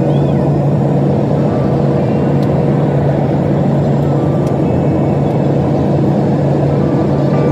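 Jet airliner cabin noise in flight, heard by a window seat over the wing: the turbofan engines and airflow make a steady, loud rushing drone with a low, even hum.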